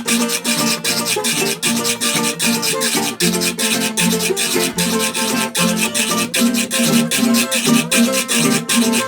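Carranga music played live: plucked strings (guitar-type instruments) over the fast, even scraping beat of a guacharaca.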